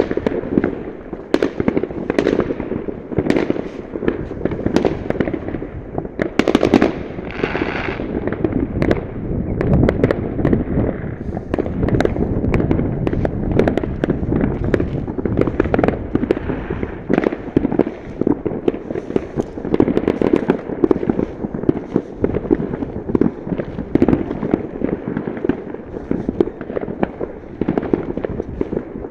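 Many fireworks going off at once across a town, a dense, unbroken run of overlapping bangs and crackles.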